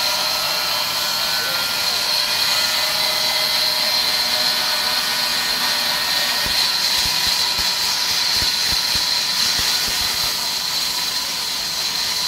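Large sawmill band saw running and cutting lengthwise through a thick wooden slab: a steady high whine over hiss. A few short low knocks in the second half as the timber is shoved along the table.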